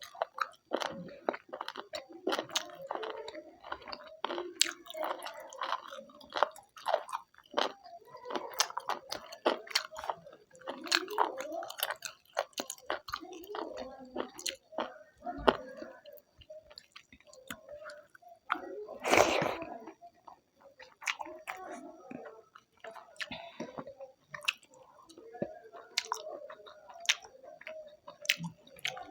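Close-miked wet chewing and lip smacking with many small clicks, as a mouthful of goat tripe (pachauni) is eaten. There is one louder, longer rush of noise about two-thirds of the way through.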